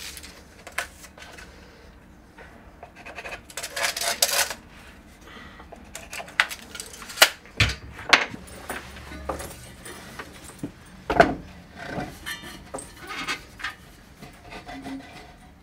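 Hands handling tools and parts: scattered clicks, knocks and short rustles, with two heavier knocks about halfway and a little past it.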